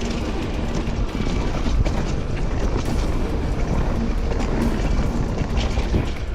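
Mountain bike rolling down a rough forest trail: tyres running over dirt and debris, the bike rattling with frequent clicks and knocks, and heavy wind rumble on the microphone.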